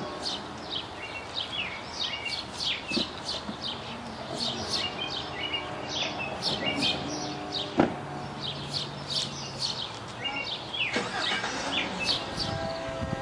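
Several songbirds chirping and singing in quick, overlapping calls over a steady low background rumble, with one sharp click about eight seconds in.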